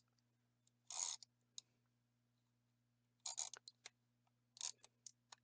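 Tape runner drawn across the back of a paper piece: one short rasp about a second in, then several quick scraping strokes with small clicks in the last two seconds.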